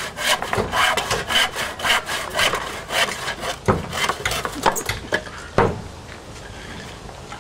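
Hand saw cutting through a wooden plank in quick back-and-forth rasping strokes. The sawing stops about five seconds in as the board is cut through, and a single sharp knock follows.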